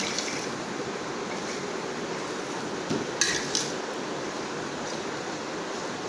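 A metal spoon stirring cubed apple, banana and grapes in a stainless steel bowl: soft shuffling of the fruit, with a few sharp clinks of spoon on steel, the clearest about three seconds in.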